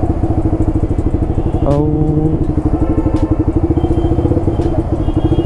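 Yamaha R15 V3's single-cylinder engine running steadily as the motorcycle is ridden slowly, its exhaust pulsing evenly. A short pitched sound rises and holds briefly about two seconds in.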